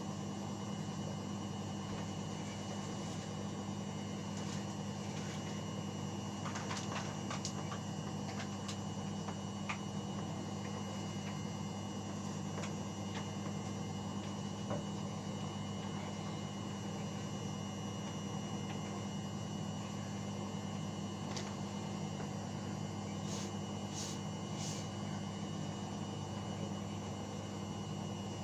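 Indesit washing machine running a wash: a steady hum with a few faint clicks.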